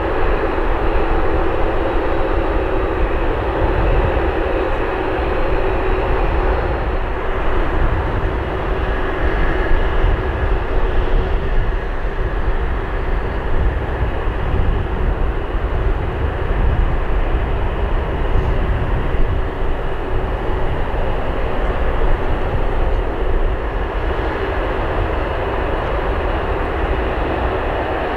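Jet airliner engines running, a loud steady rumble with a faint whine mixed in.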